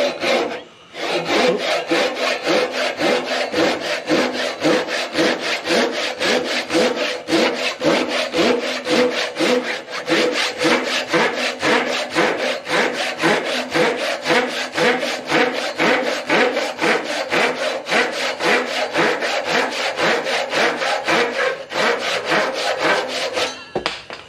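Japanese pull saw cutting through a softwood board in a steady, quick rhythm of back-and-forth strokes. There is a short break about half a second in, and the sawing stops just before the end as the cut finishes.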